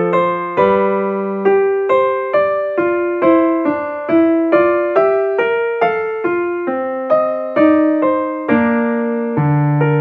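Background music: a keyboard playing a gentle melody in evenly paced single notes, about two to three a second, each struck and then fading.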